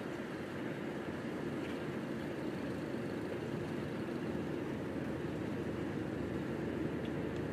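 Steady low mechanical hum and rumble that does not change.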